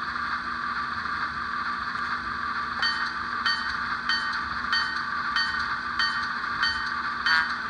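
The Bachmann HO ALCO S-4 sound decoder plays a diesel switcher's engine idling steadily through the model's small speaker. From about three seconds in, a locomotive bell rings about once every two-thirds of a second, as the locomotive gets ready to pull out.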